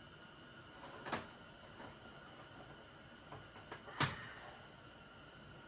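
A few light knocks and clicks from metal tools and parts being handled while a piston is measured with a caliper, the clearest about a second in and about four seconds in, over quiet room tone.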